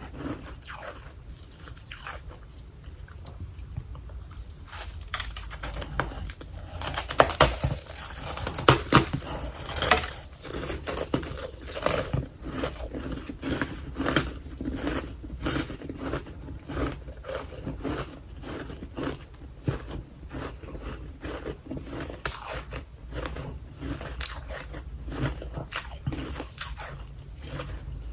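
A person biting and chewing chunks of carbonated humidifier freezer frost close to the microphone: rapid crisp crunching and crackling, soft at first, loudest a few seconds in, then steady chewing.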